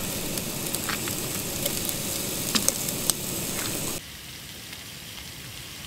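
Food sizzling and crackling as it fries in a pan on a portable gas stove, with a few sharp pops. About four seconds in it cuts off abruptly to a quieter steady hiss.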